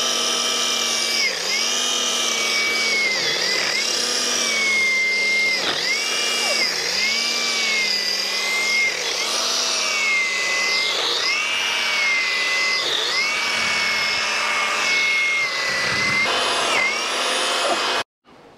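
Multi-tool's pole chainsaw attachment running while cutting overhead branches. Its steady motor pitch dips briefly every second or so as the chain bites, and it cuts off suddenly near the end.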